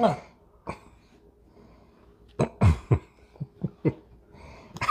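A person coughing and clearing their throat in reaction to a gulp of pickle-flavored soda. A short sound at the start, then two loud coughs about two and a half seconds in, followed by a few brief smaller ones.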